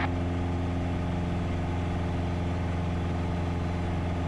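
Piper PA-28's piston engine and propeller running at a steady, even drone during the climb-out after takeoff, heard from inside the cockpit.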